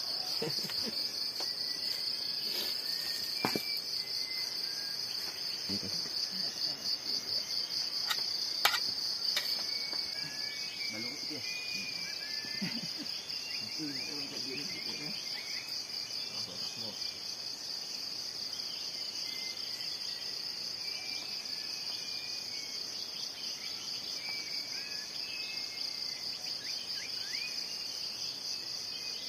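Steady high-pitched insect trilling, a fast even pulsing that does not break, with a couple of sharp clicks in the first ten seconds and faint chirps underneath.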